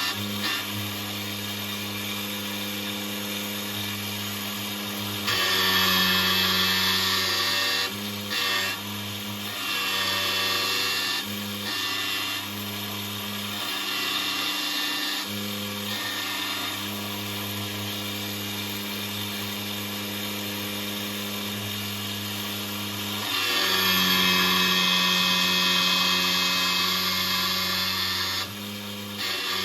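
Small electric motor spinning the grinding stone of a homemade miniature surface grinder with a steady hum. Several louder stretches of harsh hiss come as the stone grinds a small piece of steel, the longest about five seconds near the end.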